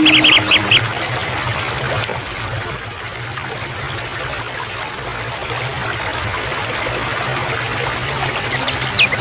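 Water running steadily, like a small stream, with a short run of quick bird chirps at the start and more chirps near the end.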